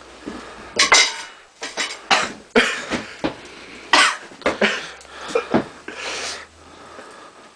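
People coughing and breathing sharply in an irregular run of about a dozen short bursts, reacting to the burn of freshly eaten habanero pepper.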